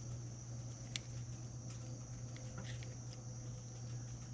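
Faint small clicks and taps of spinning-reel parts being handled during reassembly, with one sharper click about a second in, over a steady low hum and a steady high tone.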